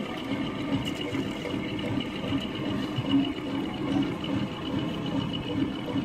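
A small motor whirring steadily, with a thin high whine above it.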